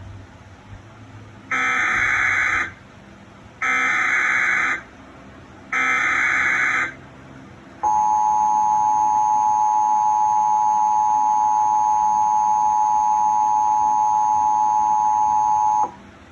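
Emergency Alert System tones: three roughly one-second screeching data bursts of the SAME header, then the steady two-tone EAS attention signal held for about eight seconds. Together they announce an alert, here a test tornado warning issued for a statewide drill.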